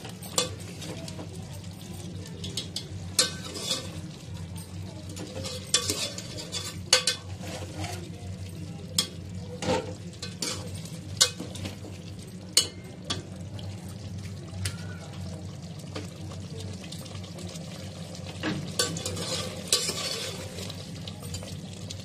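Chicken pieces frying in yogurt masala, sizzling steadily in a metal pot, as the yogurt browns in the oil. A metal ladle scrapes and knocks against the pot with scattered clicks as it stirs, over a steady low hum.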